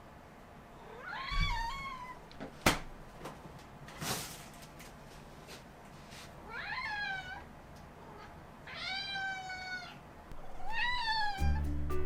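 Ragdoll cat meowing four times, each call rising and then falling in pitch, the third the longest. A sharp click comes between the first two meows, followed by a short rustle.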